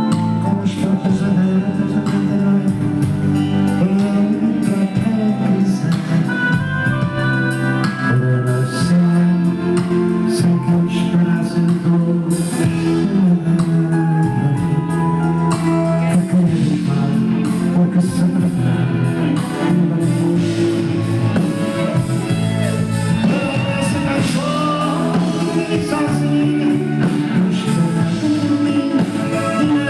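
Live band music with a male singer over guitar and a steady beat.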